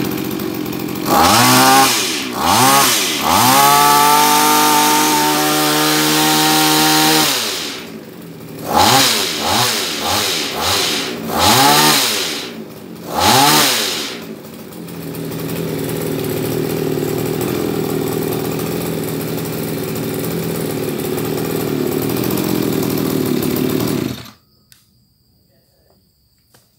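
The small two-stroke Zenoah (Komatsu) engine of a BC2310 pole hedge trimmer, just started. It is revved up several times with quick throttle blips, held at high speed for a few seconds, then revved again in short bursts. It then settles to a steady idle for about ten seconds and cuts off suddenly near the end.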